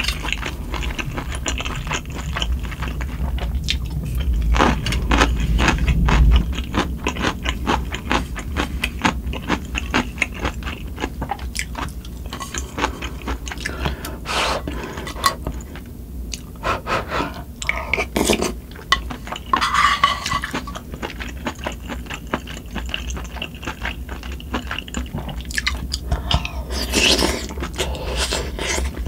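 Close-miked chewing of pork and soup from spicy sundae-gukbap, with many small clicks and scrapes of wooden chopsticks and a spoon against the pan. A steady low hum from wind and rain runs underneath.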